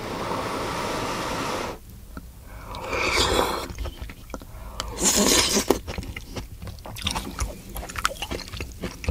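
Close-miked slurping of loach soup (chueotang) and its soft greens off chopsticks: three long slurps, the first about two seconds long. They are followed by chewing with small wet mouth clicks.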